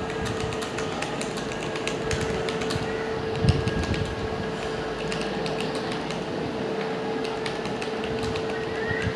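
Keyboard keys being typed at a steady pace, a few clicks a second, over a steady hum, with one louder thump about three and a half seconds in.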